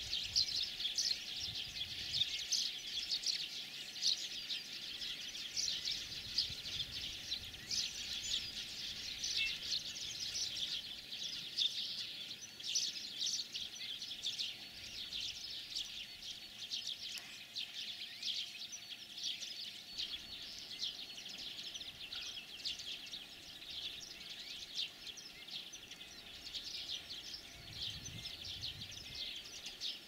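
Several European greenfinches twittering and trilling together, a dense, unbroken run of high chirps.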